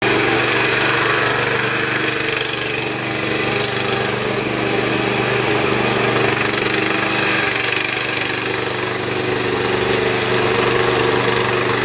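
Engine of a 1995 Dixon 3304 zero-turn riding mower running at a steady speed as the mower is driven.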